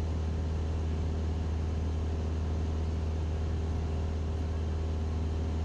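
Cessna 172SP's four-cylinder Lycoming IO-360 engine and propeller running steadily in flight, heard from inside the cabin as a constant low drone.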